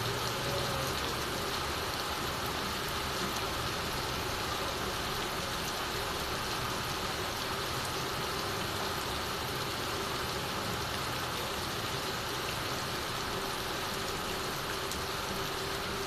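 Steady heavy rain on a tiled roof, with water streaming and dripping off the eaves onto wet ground.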